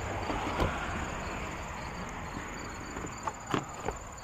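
Outdoor ambience of insects, crickets or similar, chirping steadily and evenly, with a few short knocks and clunks about half a second in and several more near the end.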